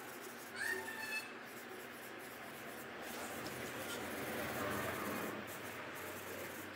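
Fingers rubbing and blending graphite shading on drawing paper, a soft papery rustle that grows louder about three seconds in. A brief high squeak sounds about half a second in.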